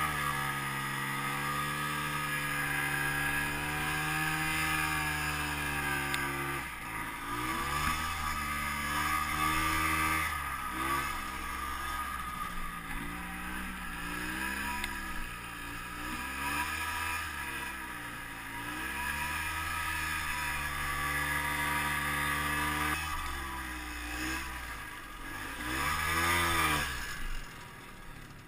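Ski-Doo Tundra snowmobile's two-stroke engine running under throttle in deep powder, its revs rising and falling again and again with several brief dips, then dropping off near the end.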